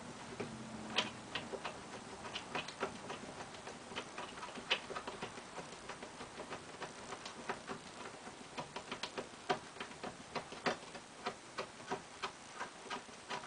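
Socket ratchet clicking in quick uneven runs as 7/16 nuts are backed off carriage bolts.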